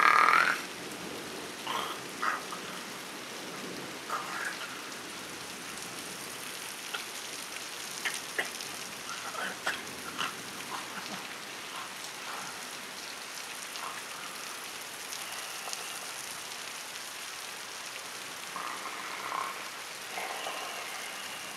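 Steady rain, an even hiss, with a brief louder sound right at the start and scattered faint short sounds throughout.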